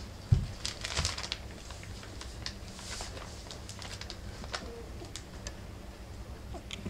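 Four-week-old rough collie puppies scuffling at play on newspaper and fleece bedding: paws scrabbling and newspaper crinkling in short scratchy clicks, with a single thump about a third of a second in.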